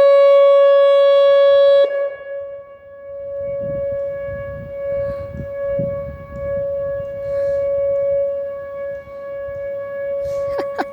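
Whelen WPS 2906 electronic outdoor warning siren sounding a steady tone at one constant pitch. It is very loud at first, drops sharply in level about two seconds in, and carries on steady but quieter, which the uploader takes for a glitch. A few clicks come near the end.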